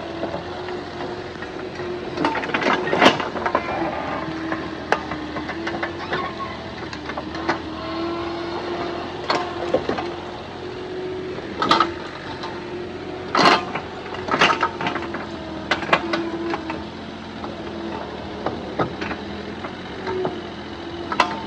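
A small engine running steadily with a wavering hum, over a series of irregular knocks and thuds, the loudest clustered in the middle.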